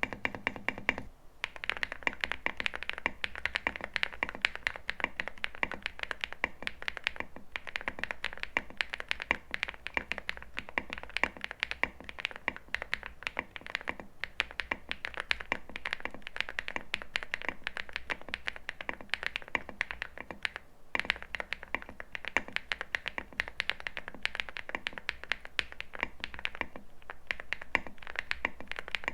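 Steady typing on a Bridge75 CNC aluminium mechanical keyboard with lubed and filmed Gateron Pure Sky switches and SA-profile PBT keycaps: a dense run of keystroke clacks, with brief pauses about a second in and again near 21 seconds.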